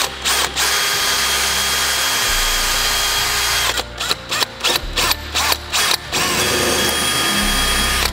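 Handheld power drill running: a steady run of about three seconds, then a string of short on-off bursts, then another steady run of about two seconds.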